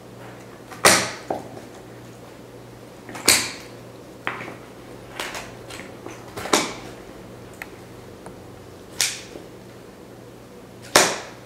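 Poultry shears cutting through a chicken's backbone: five sharp crunching snaps about two to three seconds apart, with a few smaller snips between, over a steady low hum.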